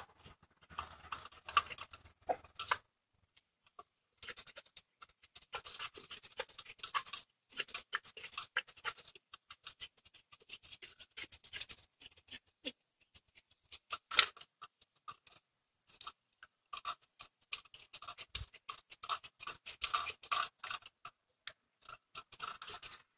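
Ratchet wrench clicking in short irregular spells as a bolt is worked, with small metallic ticks and scrapes of the tool against engine parts and one sharper click about halfway through.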